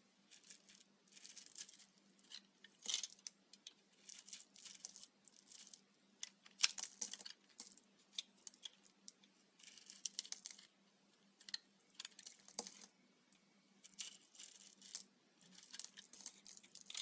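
Dry, puffed-up microwaved Dalan soap crunching and crackling in irregular bursts of crisp, brittle crackles.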